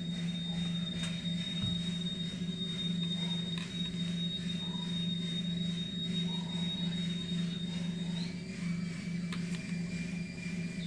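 A steady low hum with a thin, high-pitched whine over it; about eight seconds in the whine drops to a lower tone.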